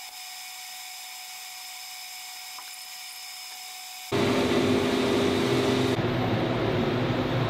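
Steady high whine of CNC machine-shop machinery with several held tones. About four seconds in it cuts sharply to a much louder, steady mechanical running noise with a low hum.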